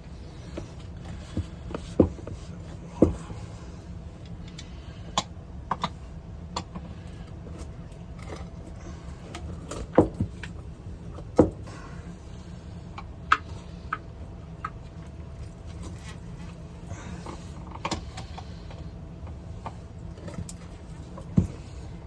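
Scattered sharp clicks and knocks at irregular intervals, over a steady low hum.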